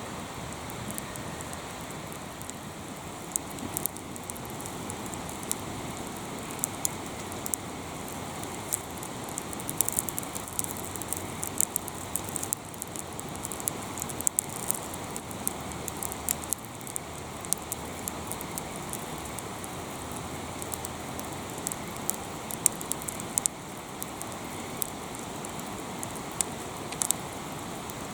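Wood campfire crackling, with frequent sharp, irregular pops, over the steady rush of a river. A faint, steady high insect trill runs underneath.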